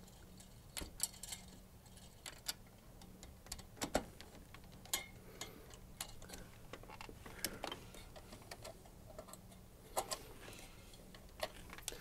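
Faint, irregular small metal clicks and ticks of a screwdriver turning and seating the CPU cooler's mounting screws as they are tightened down.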